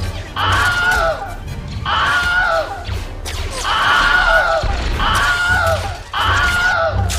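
The Wilhelm scream sound effect, repeated about six times in quick succession, each one the same short yell falling in pitch, over music and a low rumble.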